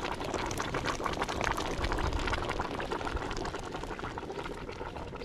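Cooking pot bubbling at the boil, a steady dense run of small pops and crackles.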